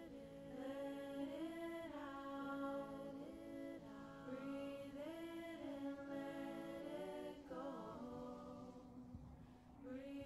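Soft background music of chant-like singing voices holding long notes and sliding smoothly from one pitch to the next, dipping away briefly near the end.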